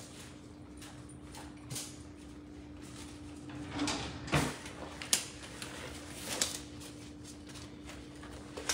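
Kitchen handling noises: a few scattered light knocks and clicks, the sharpest about four to five seconds in, over a steady low hum.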